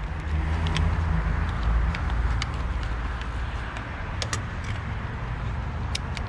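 Low vehicle rumble, swelling over the first couple of seconds and then steady, with sharp clicks and crackles of a plastic blister pack being cut and pried open with a box cutter.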